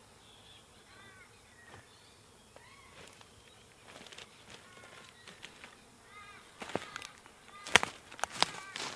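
A bird calls again and again, each call a short run of arching notes. In the last couple of seconds, footsteps crunch and snap on dry leaf litter and twigs; these are the loudest sounds.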